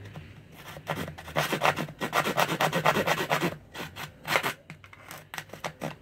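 Keyhole saw cutting into the thin, dry shell of an apple gourd. A run of quick back-and-forth strokes lasts about three seconds, then a few slower, separate strokes follow near the end.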